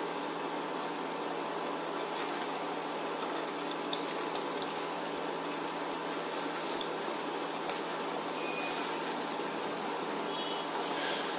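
Semolina-and-custard dough balls (suji kakara) deep-frying in hot oil on medium heat: a steady sizzle with a few small pops scattered through it.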